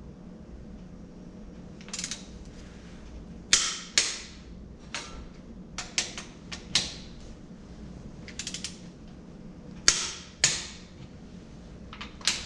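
Click-type torque wrench ratcheting and clicking off as the cylinder head bolts of a 1934 Chevrolet stovebolt six engine are tightened down. Short runs of quick ratchet clicks alternate with single sharp, louder clicks at irregular intervals.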